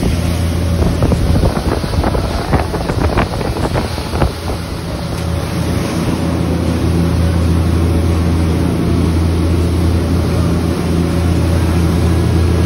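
A fishing boat's engine running steadily, with wind buffeting the microphone. A scatter of knocks and clatter comes in the first few seconds.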